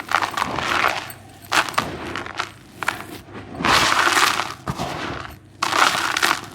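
Dry, gritty white cement crumbling and crunching, in a series of crunches of about half a second to a second each with short pauses between, the longest and loudest a little past the middle.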